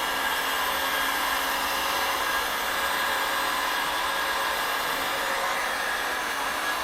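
Handheld heat gun running steadily: a rushing blow of air with a faint steady motor whine. It is warming the 3M adhesive tape under a car's trunk spoiler to soften it.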